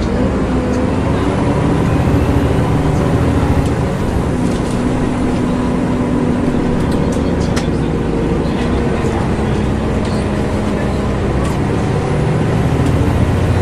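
Volvo B7LA articulated bus heard from inside the passenger saloon while under way: the engine drones steadily over road and body noise, with a few light rattles.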